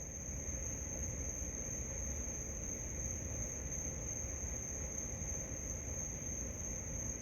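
Insects trilling steadily in one unbroken high-pitched drone, over a low rumble.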